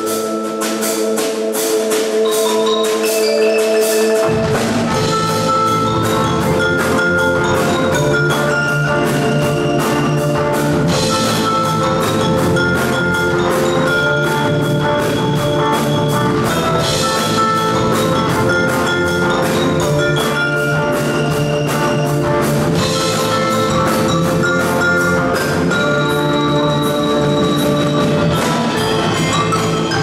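Percussion ensemble playing live: marimbas, vibraphones and glockenspiel over a drum kit, in a fast, steady rhythm. A low bass part comes in about four seconds in.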